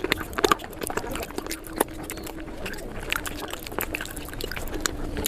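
Close-miked crunching and chewing sped up to four times speed: a fast, dense stream of crisp crunches and wet mouth clicks.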